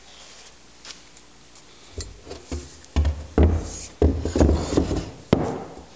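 Steel grinder parts being handled on a wooden workbench: a run of knocks, clunks and rubbing that starts about two seconds in and lasts about three seconds.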